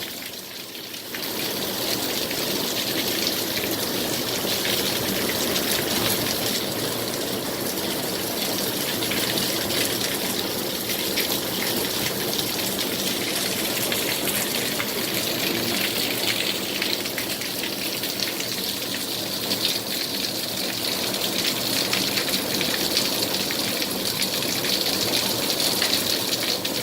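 Heavy rain from a passing storm front falling steadily, a dense hiss of countless drops spattering on surfaces. It is a little softer for the first second, then holds even.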